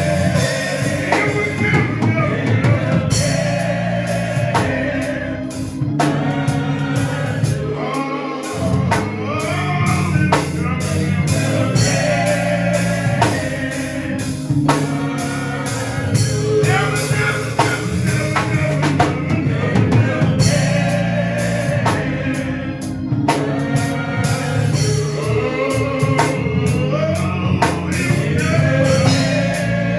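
Gospel music: singers, likely a church choir, with drums and bass.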